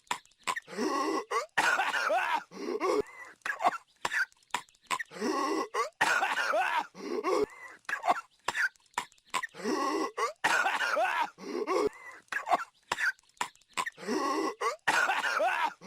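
Patrick Star's cartoon coughing fit: raspy, hacking coughs and throat-clearing. The same short sequence loops about every four and a half seconds, each pass ending in a longer, louder bout of coughing.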